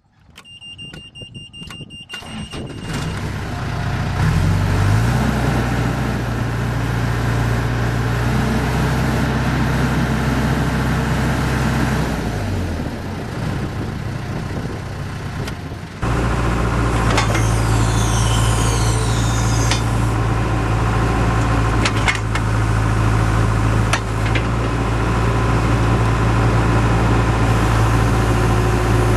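John Deere 310E backhoe loader's diesel engine starting: a high steady tone sounds while it cranks, and it catches about three seconds in. It then runs steadily, rising in speed early on and dropping back about twelve seconds in, and after an abrupt jump in level about halfway through keeps running steadily.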